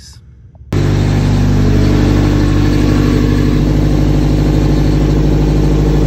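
Nissan S13 240SX engine running at a steady speed, its exhaust leak under the floor pan freshly sealed with Permatex. The sound cuts in suddenly just under a second in, loud and even with a fine steady pulsing.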